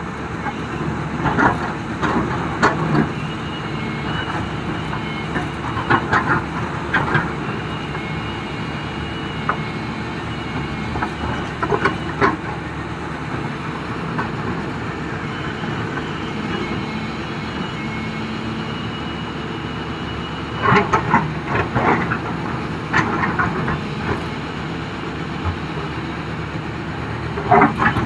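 XCMG excavator's diesel engine running steadily under load, with bursts of clattering and rattling as rock is shaken and sifted in the bucket. The clatter comes in clusters about 1 to 3 seconds in, around 6 to 7 seconds, and again from about 21 to 24 seconds.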